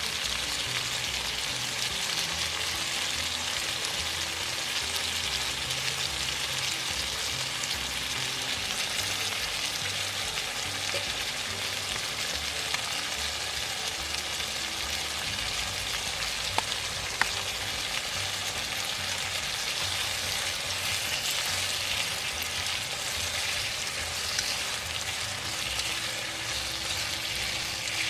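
Tofu in a spicy mala sauce sizzling and bubbling in a pan as it cooks down, a steady hiss with a couple of faint clicks near the middle.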